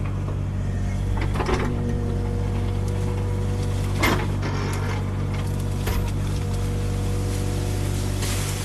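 Kubota mini excavator's diesel engine running steadily at a constant speed, with a few sharp knocks about a second and a half, four and six seconds in.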